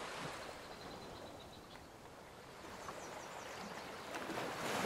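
Soft background water ambience, an even wash like a stream or gentle surf, swelling a little near the end.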